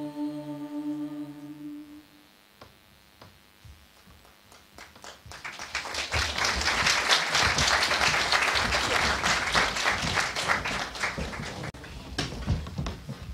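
A girls' a cappella choir holds a last chord that dies away about two seconds in. After a short hush, the audience applauds for about seven seconds.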